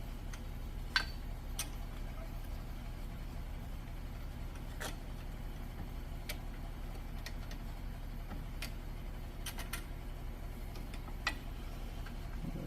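Sparse sharp clicks and knocks of things being handled in a workshop, the loudest about a second in, over a steady low hum.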